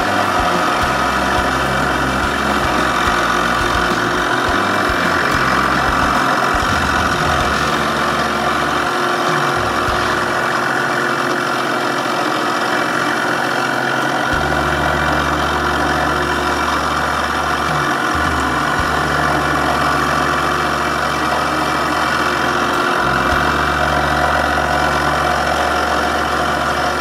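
Wood lathe running steadily, spinning an acrylic duck call insert while it is wet sanded by hand. The low part of the hum drops away for a few seconds near the middle, then returns.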